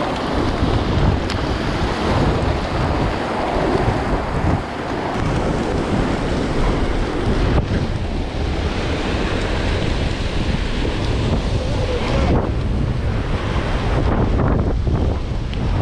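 Wind buffeting the microphone in a steady low rumble over the hiss of surf breaking on the beach.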